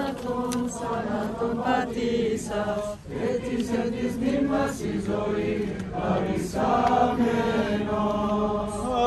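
Orthodox church chanting during the Easter service: voices sing a hymn in phrases over a steady held low note.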